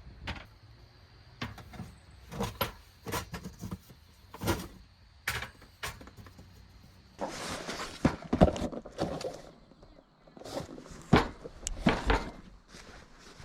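Objects being handled at close range: a string of sharp clicks and knocks, then two stretches of rustling about two seconds long, each with heavy thuds.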